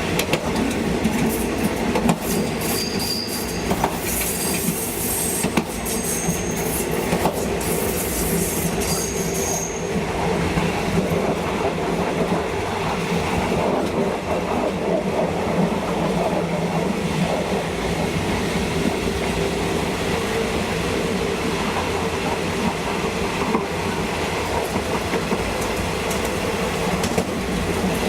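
Train running on the rails, the carriage rumbling steadily with clickety-clack, and several short high-pitched wheel squeals in roughly the first ten seconds.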